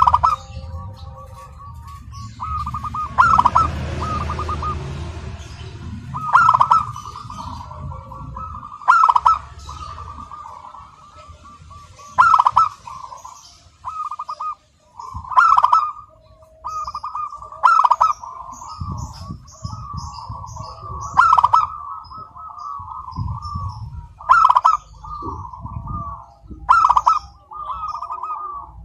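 Zebra dove (local perkutut) singing its cooing song over and over. Each trilled phrase starts loud and repeats about every three seconds, about ten times.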